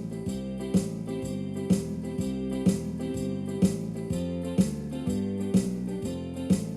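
Background music: a strummed acoustic-guitar backing track with chords changing on a steady beat of about one strike a second.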